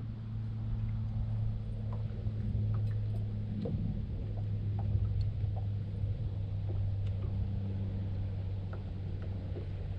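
Boat motor running with a steady low hum, with a few faint ticks here and there.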